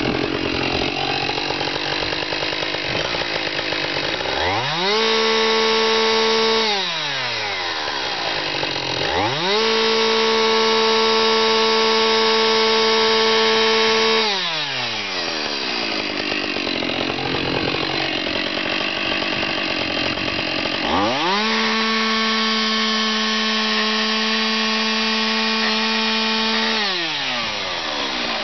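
Two-stroke chainsaw plunge-cutting a mortise into a timber fence post. Three times its revs climb to a steady high whine, held for a few seconds, then drop back to lower, rougher running.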